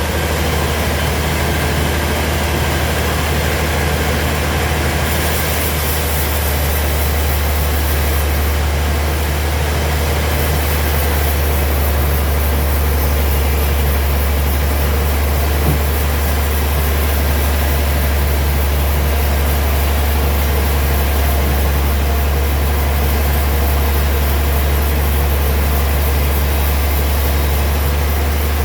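Heavy sawmill machinery running steadily, with a deep, constant hum.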